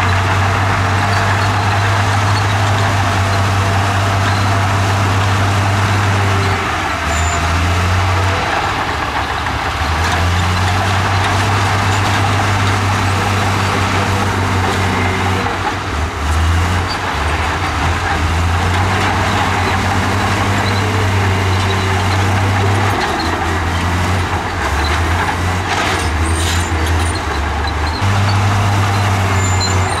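Komatsu crawler bulldozer's diesel engine running under load while pushing rock and dirt, a steady low drone whose pitch steps up and down several times as the load changes.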